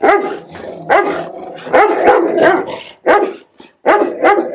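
Large guard dogs, a Rottweiler among them, barking repeatedly: about eight loud barks with short pauses between them, some in quick pairs.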